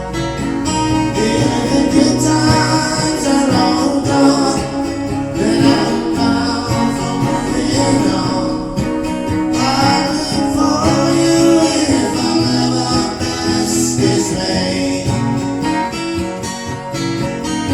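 A voice singing a slow folk song to strummed acoustic guitar.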